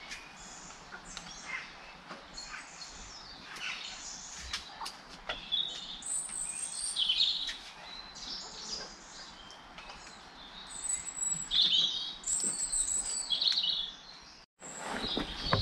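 Small birds chirping and calling in quick high notes, with louder clusters of chirps about six and eleven seconds in and light clicks between them. The sound cuts out for a moment near the end.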